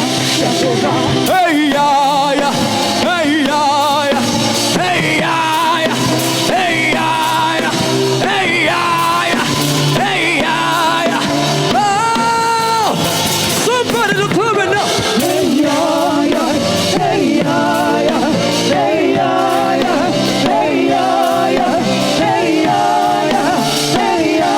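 Live gospel music: a lead vocalist singing with vibrato over a band with drums, including one long held high note about halfway through.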